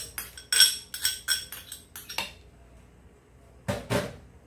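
Quick clinking taps of a utensil against a dish, about four a second, stopping a little over two seconds in. Near the end, two dull knocks from a wooden pestle in its wooden mortar.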